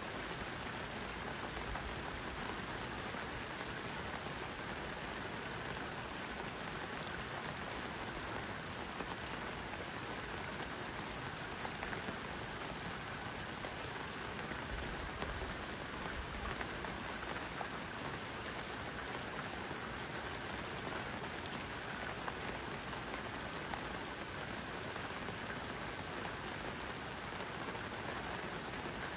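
Steady rain: an even hiss of many drops, with a few single drop ticks standing out here and there.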